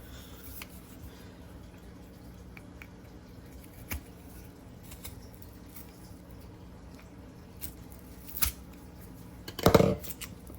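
Kitchen handling noises as a cardboard tube of refrigerated crescent roll dough is worked open: a few faint taps and clicks, then one loud sharp knock near the end. A low steady hum runs underneath.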